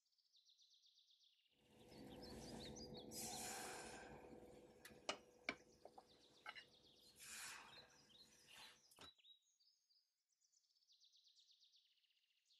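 Faint kitchen handling sounds of a ladle scooping crepe batter from a glass bowl, with two sharp clinks about five seconds in. Faint high chirping is heard at the start and again near the end.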